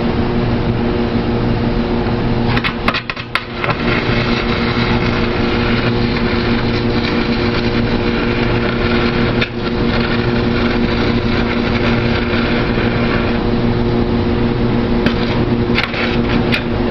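Stick (shielded metal arc) welding: the electrode's arc crackling and sizzling steadily over a steady electrical hum, briefly broken about three seconds in and again near the middle.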